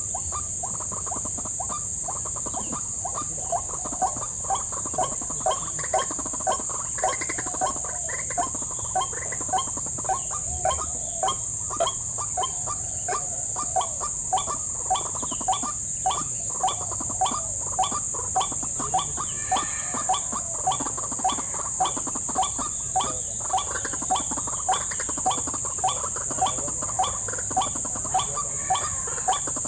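White-breasted waterhen call repeated in a regular run, a short croaking note about three times every two seconds, beginning a few seconds in. Under it runs a steady high-pitched insect chorus.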